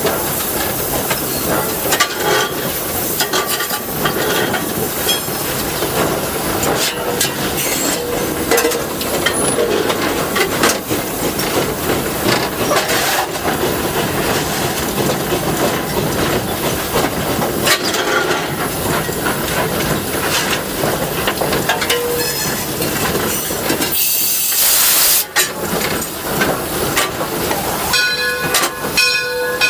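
Steam train under way behind an 1897 Baldwin steam locomotive: steady hissing with the clatter and clicks of running gear and wheels on the rails. A loud burst of hissing comes about 24 seconds in, and near the end a held tone of several pitches at once sets in.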